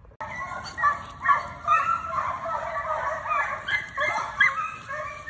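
A pack of foxhounds baying in chorus as they run a fox's trail, many voices overlapping in a continuous din.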